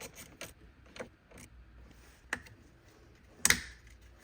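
A few scattered clicks and knocks of tools and parts being handled at a car battery, the loudest a short clatter about three and a half seconds in.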